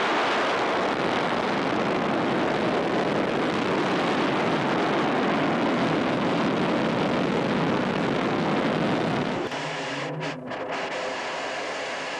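Steady roar of an R-39 solid-fuel ballistic missile's rocket motor as it lifts off and climbs away. About nine and a half seconds in, it cuts abruptly to a quieter, steady rushing noise.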